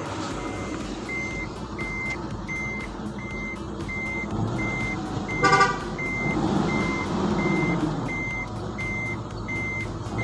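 Electronic warning beeper repeating evenly, about one and a half beeps a second, over the steady running noise of the vehicle. A short, loud horn-like tone sounds about five and a half seconds in.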